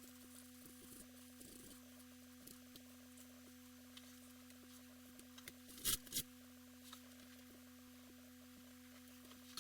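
Faint steady electrical hum with scattered small clicks, and two louder sharp clicks about six seconds in.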